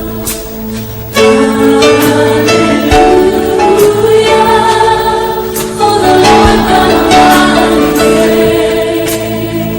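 Worship music: voices singing over instrumental accompaniment, the singing coming in louder about a second in.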